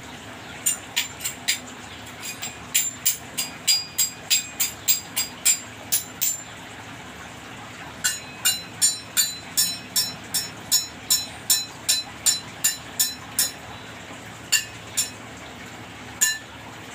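A rapid series of sharp, high-pitched chirps, about three a second, in two long runs with a short break between them, then a few scattered ones near the end.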